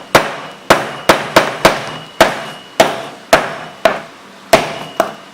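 The glass-breaker tip of a stainless steel multi-tool repeatedly striking a sheet of laminated auto glass. About eleven sharp hits come roughly two a second, each with a short ring. The glass is cracking under the blows.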